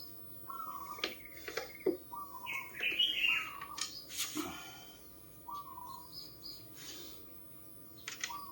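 A bird calling repeatedly, short wavering chirps about a second apart, with a few higher notes in the middle. A few sharp clicks, most of them in the first half.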